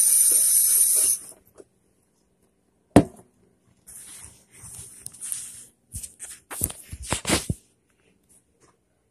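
Water running from a kitchen faucet into a blender jar, stopping about a second in. A sharp knock follows about three seconds in, then scattered short clatters and rustles.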